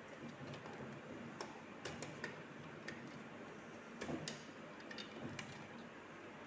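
Faint, irregular light clicks and taps of hands handling parts inside an open desktop computer case, with a few soft knocks about four seconds in.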